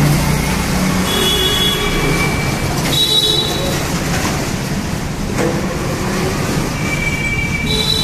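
Traffic noise echoing inside a concrete road underpass: e-rickshaws and motorbikes running through, over a steady rumble. Short high-pitched tones sound about a second in, around three seconds in and near the end.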